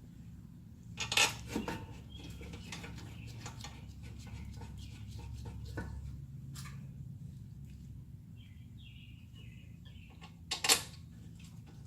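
Metal brake parts and tools clinking and clacking as they are handled, with sharp clinks about a second in and again near the end, over a steady low hum.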